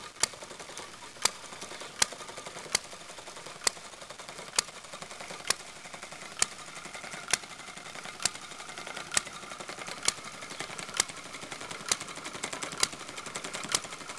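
Model open-crank four-stroke hit-and-miss petrol engine running, with a sharp pop just under once a second and a light mechanical clatter between the pops. The engine fires only now and then and coasts through the misses, as its hit-and-miss governor holds the exhaust valve open.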